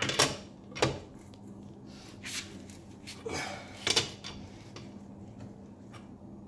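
Tools and metal parts being handled during work on a car's suspension: about five sharp, irregular clanks and clicks over a low steady hum.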